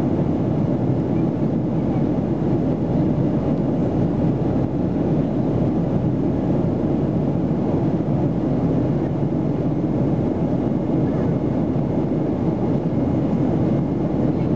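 Steady cabin noise of a Boeing 737-300 in flight, heard from a seat over the wing: its CFM56-3 turbofan engines and the rush of air past the fuselage make a deep, even roar.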